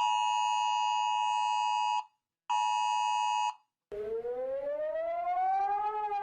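Emergency alert alarm sounds: a steady two-note alert tone sounds twice, for about two seconds and then about one second. After a short gap a siren wail starts, rising slowly in pitch and beginning to fall near the end.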